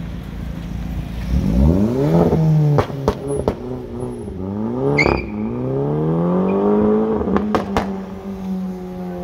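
High-performance car engine revving up three times, the pitch climbing steeply on each pull and falling back between them, then running on at a steady pitch. Sharp cracks sound between the pulls and again near the end.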